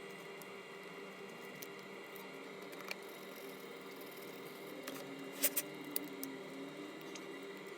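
A steady hum of constant tones with a few small, sharp clicks and taps. The loudest are a quick pair about five and a half seconds in.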